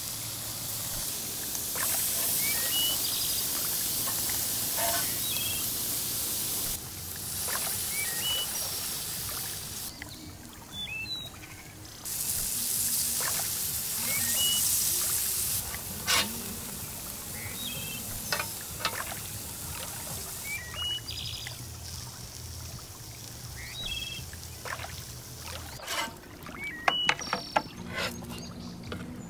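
Bacon-wrapped burger patties sizzling on a grill, a high hiss in stretches that start and stop abruptly, with clicks and scrapes of a metal spatula on the grate. A few short bird chirps.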